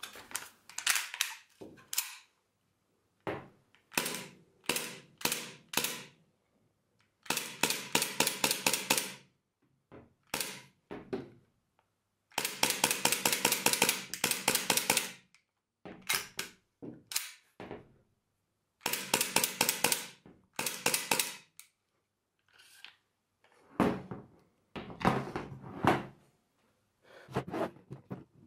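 Gas blowback airsoft pistol in a RONI carbine conversion kit firing: several single shots, then three rapid full-auto bursts of sharp cracks, each two to three seconds long. Handling knocks near the end.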